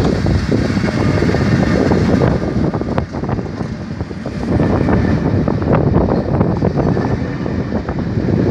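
Class 73 electro-diesel locomotive and its test-train coaches passing close by, a steady rumble of wheels on rail with occasional faint clicks, and wind buffeting the microphone.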